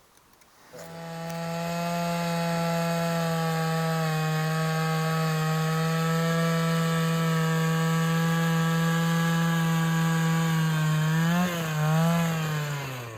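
Power ice auger motor running at a steady high speed for about ten seconds, drilling through lake ice; near the end its pitch wavers and then falls as it winds down.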